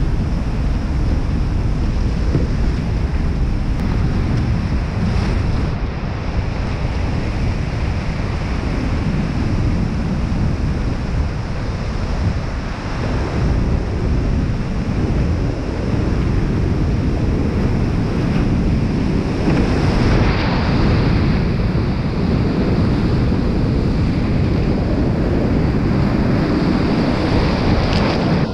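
Loud, steady rush of whitewater rapids and falling water, heard close up from a kayak in the current. A deep rumble from water and wind buffeting the microphone sits under it.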